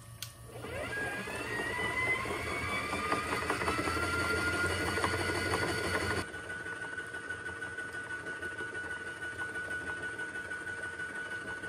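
Electric motor of a DIY shaking sluice table whining as it speeds up, its pitch rising, over a wash of running water. About six seconds in the water noise drops away suddenly, and the motor runs on at a steady pitch with a rhythmic pulsing as it shakes the table back and forth on its flexure springs.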